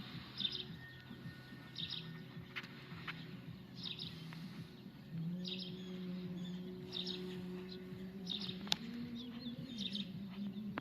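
Honeybees buzzing, a steady hum that swells about five seconds in. A small bird repeats short high chirps about once a second, and there is one sharp click near the end.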